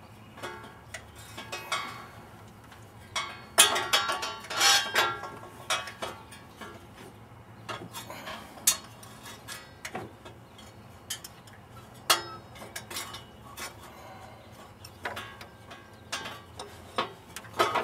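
Hand wrench and loose bolts clinking against the metal of the engine's fan assembly as it is unbolted: scattered light metallic clinks and taps, the loudest cluster about three and a half to five seconds in.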